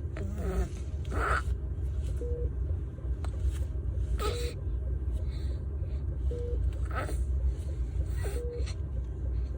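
A baby's short breathy sounds, about four in all, a second or more apart, over a steady low rumble.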